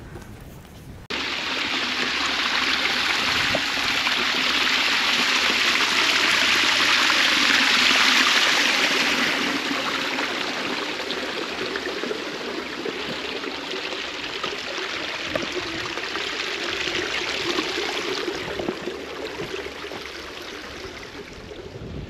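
Small stream of water running over rocks, a steady rushing trickle that starts suddenly about a second in, grows loudest near the middle and then slowly fades.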